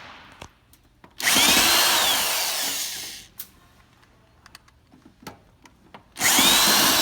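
Power drill/driver backing out two screws from the ice maker's panel: two bursts of about two seconds each, about five seconds apart, each with a motor whine that rises and then falls in pitch.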